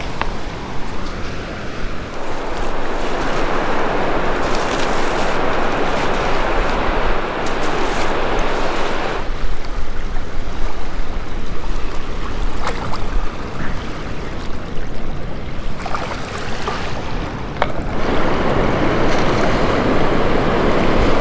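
Ocean surf washing onto a sand beach, a continuous wash of breaking waves that swells and eases several times.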